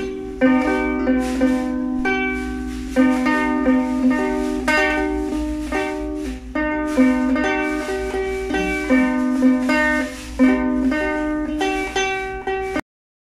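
Ukulele being played by hand, plucked notes and chords ringing out one after another at a slow, even pace. The playing cuts off suddenly near the end.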